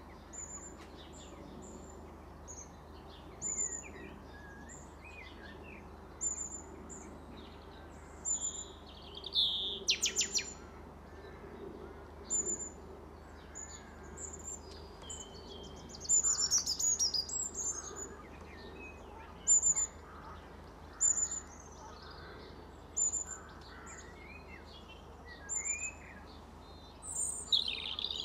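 Wild birds singing and calling: a short high chirp repeated over and over, mixed with varied song phrases, over a steady low background hum.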